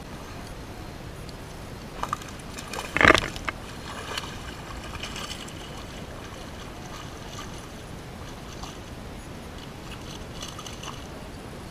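Water splashing at the surface of a pond, with one loud sharp splash about three seconds in and a smaller one just before it, over a faint steady hiss.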